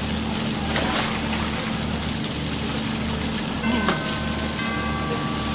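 Steady hiss of a lit water fountain's jets spraying and splashing down onto the lake, over a low hum and a regular low throb. Held notes of music come in about two-thirds of the way through.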